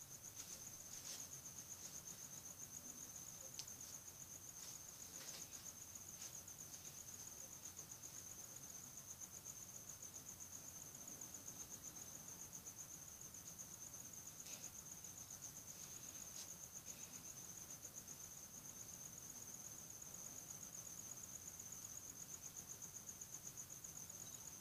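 A cricket chirping in a steady, fast, high-pitched trill that never pauses, with a few faint clicks.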